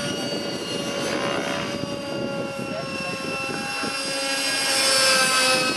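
Radio-controlled model helicopter in flight: a steady high whine from its engine and rotor head, with many overtones. It swells louder about five seconds in.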